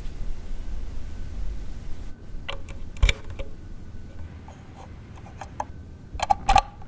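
Cables being plugged into the back of a Pro-Ject Debut Carbon EVO turntable: low handling noise, then a sharp click about three seconds in as the power plug goes into its socket, and a quick few clicks and scrapes near the end as an RCA plug is pushed onto a gold-plated output jack.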